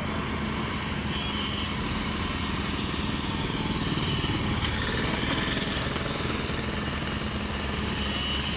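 Heavy diesel engine running steadily, a low rumble of rapid, even firing pulses at constant speed.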